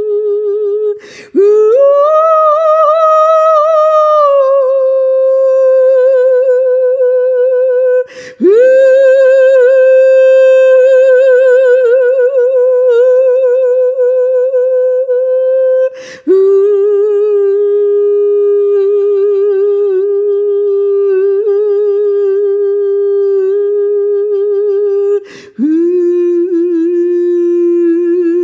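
A woman's voice singing long, wordless held notes with a slight waver, each lasting several seconds, with four short breaths between them. After the first breath each new note starts a little lower than the one before.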